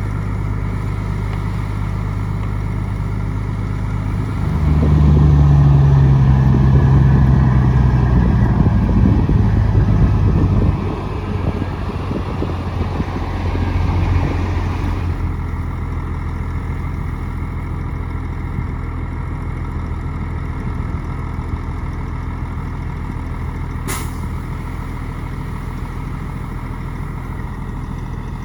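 Bulldozer's diesel engine running, revving up and working harder about four seconds in for some six seconds, then settling back to a steady lower run. A single sharp click sounds near the end.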